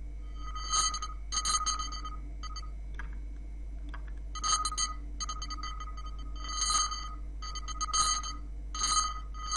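A short electronic sound effect, a pitched blip with bright ringing overtones, played about eight or nine times in short, irregular snippets as the effect is previewed in the editing timeline. A steady low hum lies underneath.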